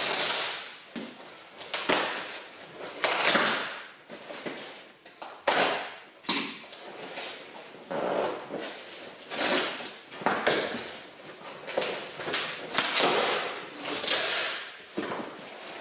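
Packing tape being ripped off a long cardboard shipping box and the cardboard torn open, in a dozen or so separate tearing pulls of about a second each.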